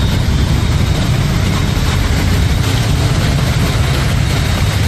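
Road traffic on a wet, waterlogged street: vehicle engines running with a steady low rumble.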